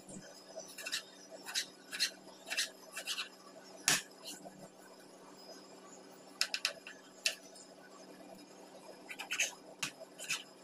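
Kitchen knife chopping a carrot on a cutting board: irregular sharp taps of the blade striking the board, in short runs with pauses between them, and one louder knock about four seconds in. A steady low hum sits underneath.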